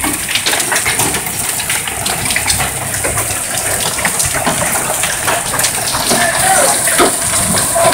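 Heavy rain and hail falling, a steady downpour with many sharp clicks of hailstones striking hard surfaces.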